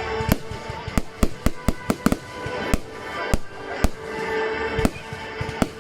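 Fireworks going off in a rapid, irregular string of sharp bangs, about a dozen of them, over music playing with steady held tones.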